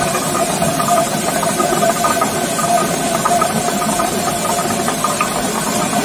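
Traditional water-powered stone mill (gharat) grinding grain: the turning millstone gives a steady grinding hum, with a fast continuous rattle from the wooden feed chute shaking grain out of the hopper into the stone's eye.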